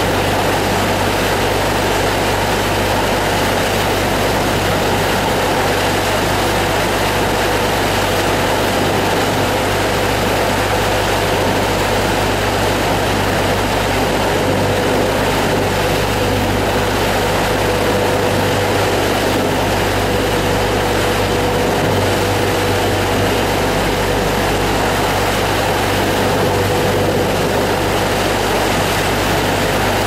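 A boat's engine running steadily under way: a loud, constant drone with a held tone and a low hum. Under it is the steady rush of the churning wake.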